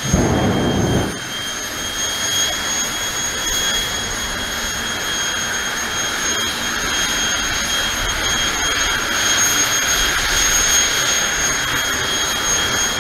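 Fireforce 5 jet car's jet engine shooting a loud burst of flame from its exhaust in the first second, then running on the start line with a steady high whine.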